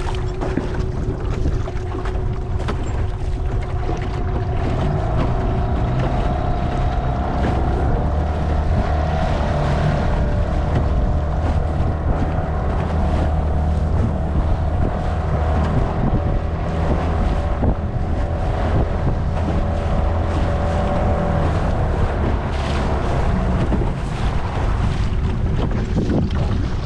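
Small boat's outboard motor running under way, its pitch rising a few seconds in and then holding steady, with wind buffeting the microphone.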